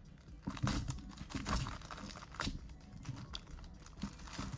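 Clear plastic wrapping crinkling and rustling in irregular bursts as a small paper box is handled and slid out of it. It starts about half a second in.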